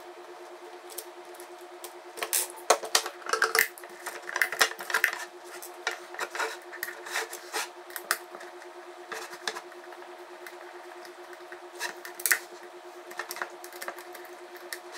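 Scattered clicks and knocks of hard plastic and metal as thumb screws are turned and the plastic underwater dome housing is handled and tilted on a table, busiest a few seconds in and again near the end, over a faint steady hum.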